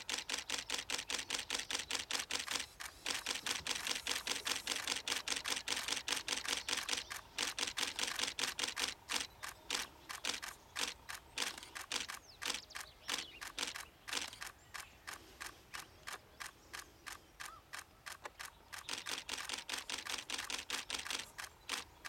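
DSLR camera shutters firing in long continuous bursts, a rapid train of about five clicks a second, with a few short pauses between bursts.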